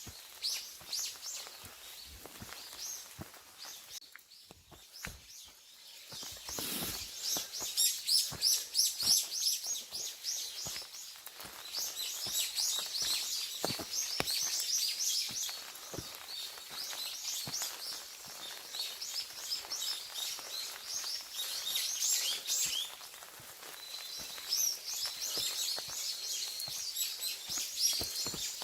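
Small songbirds chirping and singing in quick repeated notes, with soft footsteps on a forest path underneath.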